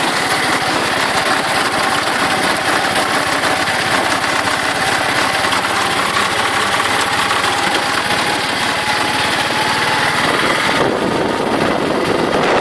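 Auto rickshaw's small engine running steadily while the rickshaw drives along, heard from inside the open cab, with a faint whine that slowly drops in pitch.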